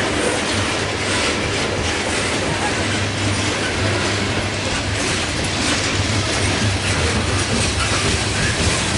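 Loaded coal hopper cars of a slow, heavy freight train rolling past close by: a steady rumble of steel wheels on rail with clacking from the wheels and couplings.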